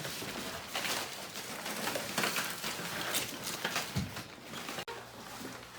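Rustling and light clatter of hands packing small items and bags, in irregular short bursts. There is a brief drop in level about five seconds in.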